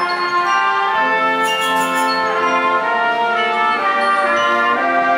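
A school wind band of saxophones, brass and tuba playing long held chords that change about once a second, with a brief bright ringing of percussion near two seconds in.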